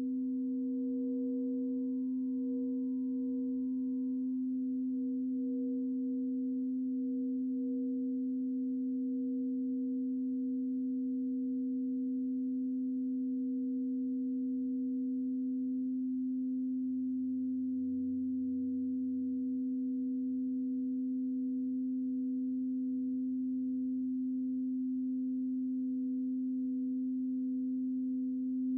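Crystal singing bowl sounding one long, pure, steady tone with a faint higher overtone, held at an even level without a break.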